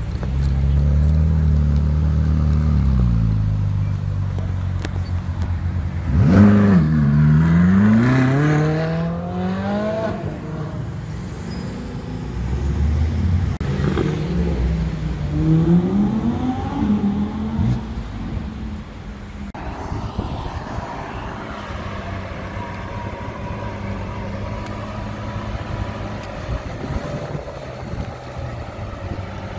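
Ferrari V8 running at low revs, then accelerating hard about six seconds in, its note climbing and dropping back with each quick upshift, with more bursts of revving a few seconds later. After an abrupt change, a Lamborghini Aventador S V12 runs steadily at low revs as the car pulls slowly away.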